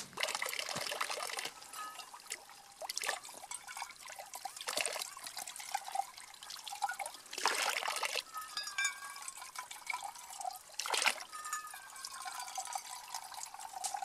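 Spring water trickling from a wooden spout and splashing into a small metal cup held under it to be filled, now and then louder.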